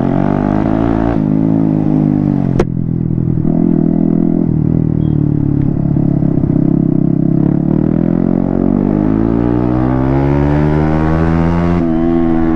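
Yamaha MT-15's single-cylinder engine running with the silencer removed, its open exhaust loud and raw as the revs rise and fall. There is a sharp click about two and a half seconds in, and from about eight seconds the revs climb steadily before dropping off sharply near the end.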